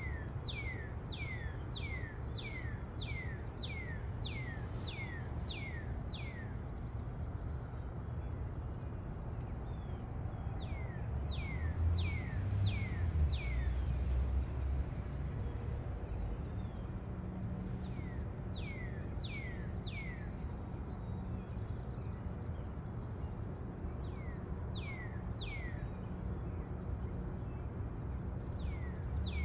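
A songbird singing: runs of short whistled notes that each slide downward, about two a second, coming in bursts of four to a dozen notes with pauses between. Under it a steady low outdoor rumble, which grows louder for a few seconds about twelve seconds in.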